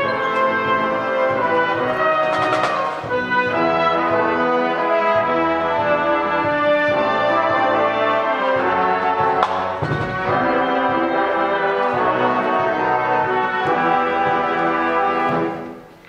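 A high-school marching band of brass, saxophones and drums plays, with sharp accents about two and a half seconds in and again near the ten-second mark. The music breaks off for a moment at the very end.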